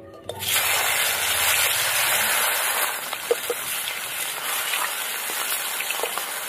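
Salt-and-turmeric-rubbed tuna pieces going into hot oil in a kadai and sizzling, with small scattered pops. The sizzle starts about half a second in, is strongest for the first couple of seconds, then settles to a slightly quieter, steady frying sound.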